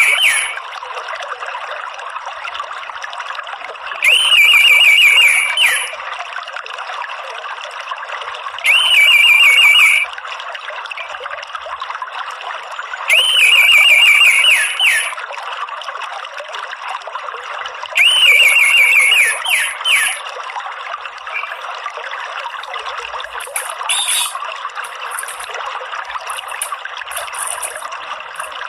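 Orange-headed thrush's 'ngeriwik' call, a loud trilled phrase repeated five times about every four to five seconds, each about a second and a half long, with a few shorter chirps near the end. It is played as a lure to get caged thrushes singing. Underneath runs a steady trickle of water.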